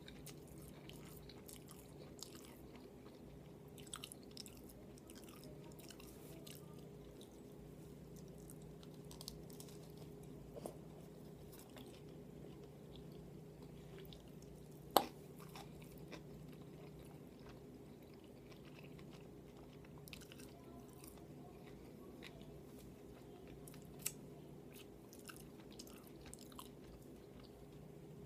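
Close-miked chewing and wet mouth sounds of someone eating, with scattered small clicks and two sharper snaps about fifteen and twenty-four seconds in, over a faint steady hum.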